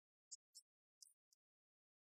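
Near silence, with a few faint, short high-pitched ticks.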